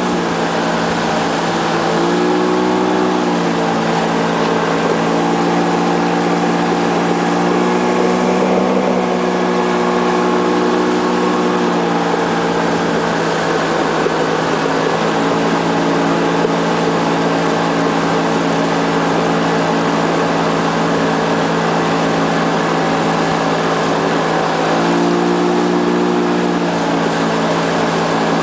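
Motorboat's outboard motor running steadily at speed, briefly rising in pitch about two seconds in and again near the end, over a constant rush of wake water and wind.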